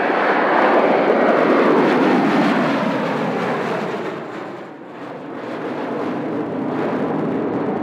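An airliner's engines passing close by, loudest in the first two seconds, with a falling sweep in pitch as it goes past; the noise dips about five seconds in, then rises again to a steady level.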